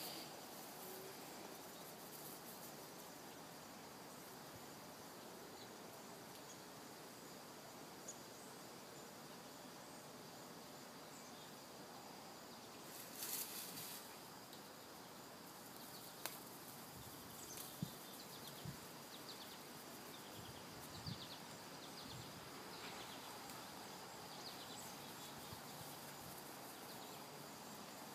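Quiet outdoor background with a faint steady high hum. There is a brief burst of noise about halfway through and a few soft knocks in the second half.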